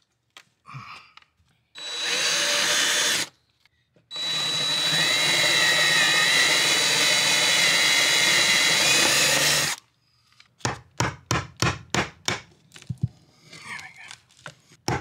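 Power drill boring through a hardwood floor: a short run, then a longer steady run of about six seconds with a high whine. This is followed by a quick series of sharp knocks and clicks.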